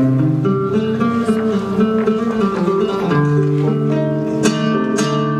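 Flamenco guitar playing strummed chords for an alegrías, with two sharp accents near the end.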